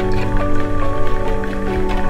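Background music: held notes that step from one pitch to the next over a steady low note, with light regular ticks.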